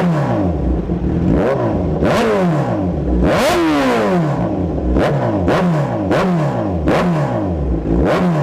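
Kawasaki ZX-10R inline-four superbike with an Austin Racing full-system exhaust, revved in quick throttle blips at standstill: about eight or nine sharp rises in pitch that each fall back to idle, with one longer, higher rev about three and a half seconds in.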